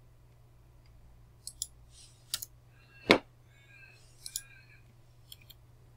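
Computer keyboard keys and mouse buttons clicking as keyboard shortcuts are entered. There are about eight short sharp clicks, several in quick pairs, and one louder click about three seconds in.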